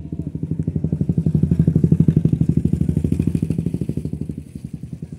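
A small engine running with a rapid, even chugging pulse, growing louder over the first two seconds and then fading.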